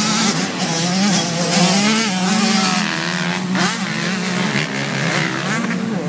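Several motocross bike engines revving, their pitch rising and falling over and over.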